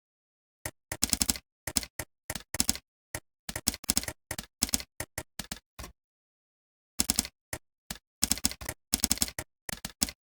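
Typing on a computer keyboard: quick runs of keystrokes in short bursts, with a pause of about a second just after the middle.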